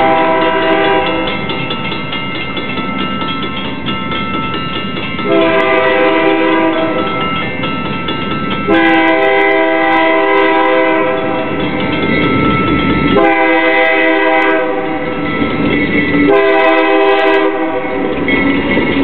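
Diesel locomotive air horn sounding long chords almost without break, its tone shifting every three to five seconds, over the rumble of the passing train.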